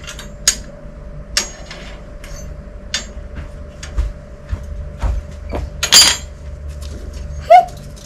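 Scattered metallic clinks and knocks on a steel rebar mesh, with a couple of dull thumps; the loudest clank comes about six seconds in.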